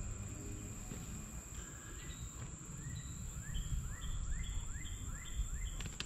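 Outdoor creek-side ambience: wind rumbling on the microphone under a steady high insect drone. From about a second and a half in, a short rising chirp call repeats about twice a second.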